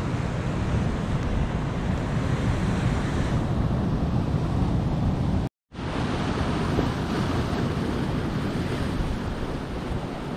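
Heavy sea swell washing and breaking over rocks, with wind buffeting the microphone. The sound cuts out for a split second about halfway through.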